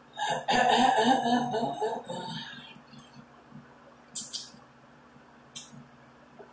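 Eating sounds. For the first two seconds there is a loud, short burst of mouth noise with some voice in it. Then come two sharp, wet smacks, about four and five and a half seconds in, as fingers are licked clean while eating a pork chop by hand.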